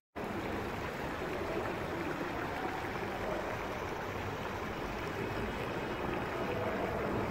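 Steady rush of a fountain's water splashing into its pool.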